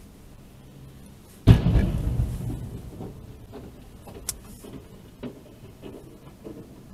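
Car cabin sound picked up by the dashcam's own microphone while the car is stopped in traffic: a low, steady hum, then one sudden heavy thump about a second and a half in that dies away over about a second, followed by a few faint clicks.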